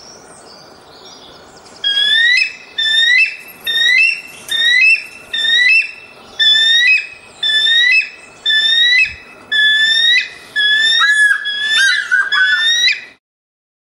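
A kite calling: a series of about a dozen shrill, whistled calls, roughly one a second, each a short curved whistle, ending in a quicker run of wavering notes. The calls start about two seconds in over a faint steady hiss and stop shortly before the end.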